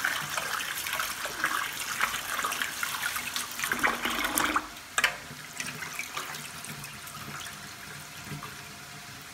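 Cold tap water running into a pot of boiled chickpeas in a stainless steel sink while hands rub and squeeze them to slough off the skins, with busy splashing and sloshing. About five seconds in it drops to a quieter, steady trickle as the water is poured off.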